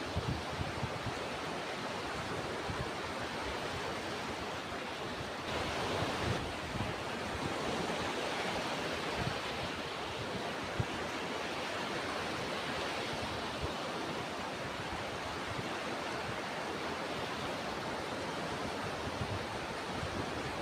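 Ocean surf: waves breaking and washing in a steady rushing noise that swells and eases slightly, with a few short low thumps of wind on the microphone.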